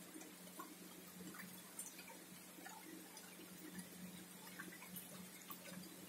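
Faint night-time outdoor ambience among vegetation: a low steady hum with scattered, irregular short ticks and chirps.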